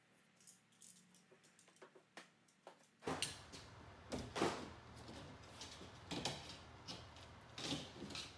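Rear window glass of a Toyota Land Cruiser 80 series tailgate being handled and worked out of its rubber weather seal: scattered scrapes, creaks and light knocks. They are faint for the first three seconds, then louder, over a steady background hiss.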